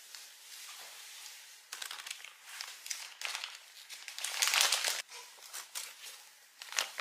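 Plastic diaper packaging crinkling and rustling in irregular bursts as a baby monkey handles the pack and rummages inside it. The rustling is loudest about four and a half seconds in.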